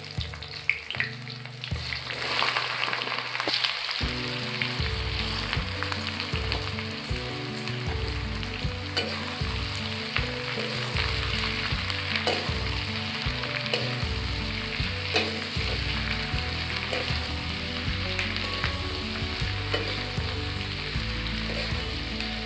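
Sliced onions frying in hot oil in an iron kadai, a steady sizzle that grows louder about two seconds in, with a metal spatula scraping and clicking against the pan as they are stirred.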